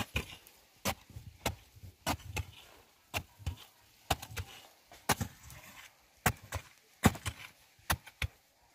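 Short-handled digging tool chopping into hard earth at the bottom of a pit, with repeated sharp strikes about one to two a second, often in quick pairs.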